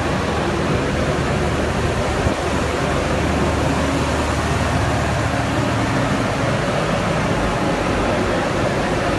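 Industrial coconut-shred dryer machine running: a steady loud rushing noise of its machinery with a low hum underneath.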